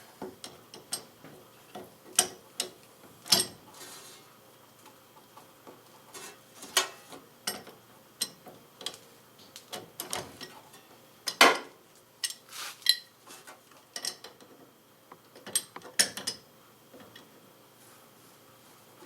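A wrench tightening the nut on a car battery terminal: irregular sharp metal clicks and clinks, one louder knock past the middle.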